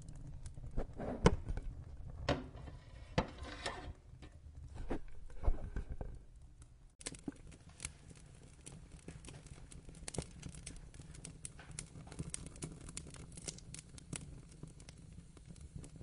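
Wood fire crackling, with a few louder pops in the first half. About seven seconds in, the sound changes abruptly to a quieter, denser crackle.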